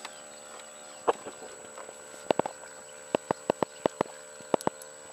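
Sharp knocks and taps while a hooked largemouth bass is landed beside a boat hull: one about a second in, a pair, then a quick run of five in under a second, and two more near the end.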